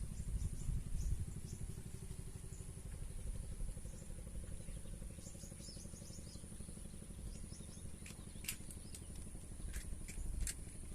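A small engine running with a fast, even low rumble that eases down over the first few seconds. Several sharp clicks come near the end.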